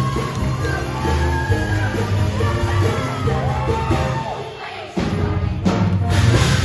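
Show choir singing over loud accompanying music with a heavy bass line, with some shouts among the voices. About five seconds in the music briefly drops back, then comes back with a loud closing hit near the end.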